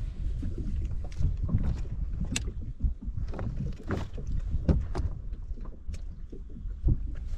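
Wind rumbling on the microphone and water lapping against the boat's hull, with scattered sharp ticks.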